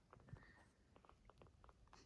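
Faint wet clicks and smacks of two-week-old Sphynx kittens suckling and nuzzling at their mother, with a tiny squeak about half a second in.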